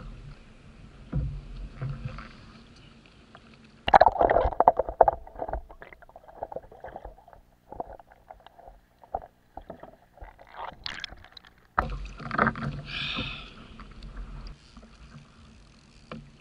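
Sea water slapping and sloshing against a fishing kayak, with a loud sudden splash about four seconds in followed by muffled underwater gurgling and clicks.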